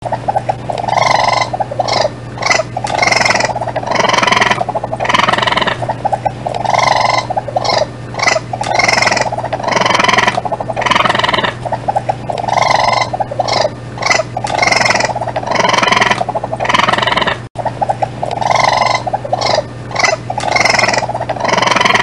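Raccoon calls: rapid, pulsed trills in bursts of about a second, the same run of calls recurring about every six seconds, over a steady low hum.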